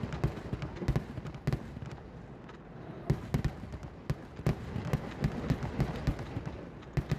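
Kerala temple-festival fireworks (vedikkettu) going off: many sharp bangs and cracks in quick, irregular succession over a continuous low din.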